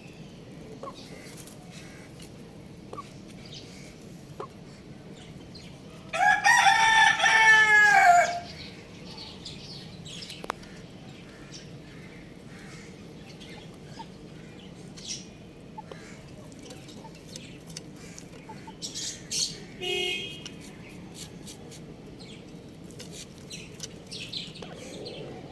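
A young rooster crows once, a high-pitched crow lasting about two seconds, around six seconds in. A few shorter, fainter chicken calls follow later, among small scratching and pecking clicks.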